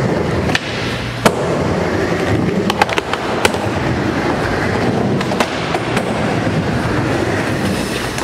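Skateboard wheels rolling back and forth on a wooden mini ramp, with several sharp clacks of the board and trucks striking the metal coping and deck as the rider does blunt stalls.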